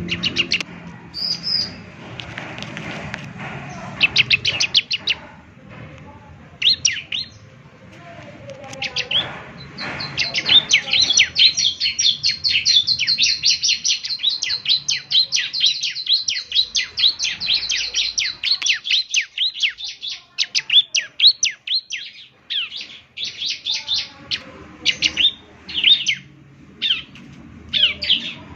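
Ciblek (bar-winged prinia) singing: rapid strings of high, sharp down-sweeping notes. About ten seconds in they run into a long fast trill lasting some ten seconds, then break back into shorter bursts.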